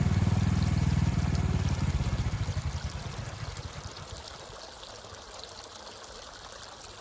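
Engine of the heavy machine pushing the tree, running with a low, even firing beat that fades out over the first three or four seconds. A faint steady hiss is left after it.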